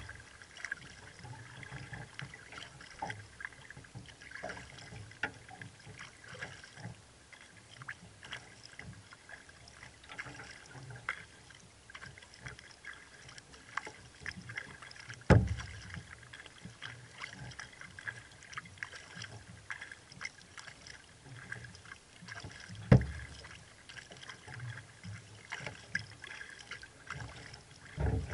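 Sea kayak being paddled: a steady patter of water dripping and splashing off the paddle with each stroke, broken three times by a sharp, low knock.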